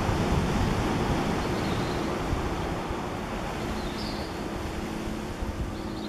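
Steady wind rushing and buffeting the microphone, with a hiss like surf. Faint, short high chirps come a few times.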